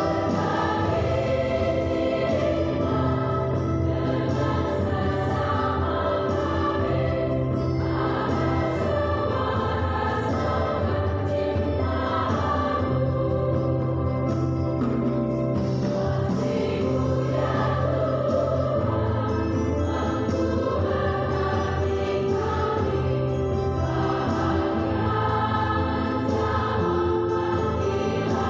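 Background music: a choir singing slow, sustained chords.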